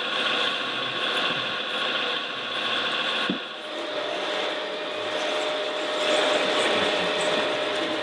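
Radio-controlled Liebherr 634 track loader model, its electric drive and gears whining steadily with several held tones. About three seconds in there is a short knock, the pitch shifts, and a new steady tone joins.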